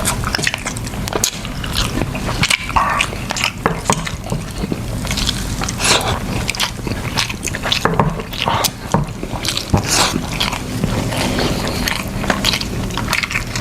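Close-up eating sounds of seafood in sauce: chewing and biting with many short, irregular wet clicks and smacks, over a steady low hum.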